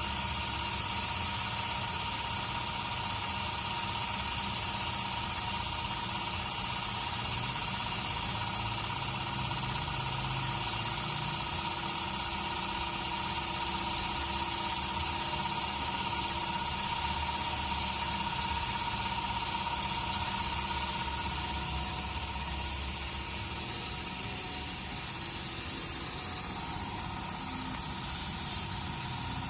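Paint spray gun hissing as it sprays a car bonnet, swelling about every three seconds, with a steady tone underneath.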